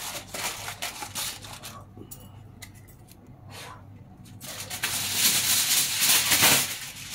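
Aluminium foil crinkling and rustling as it is pressed and tucked over the rim of a cooking pot to seal it. It goes quieter for a couple of seconds in the middle, then louder, denser crinkling comes in near the end.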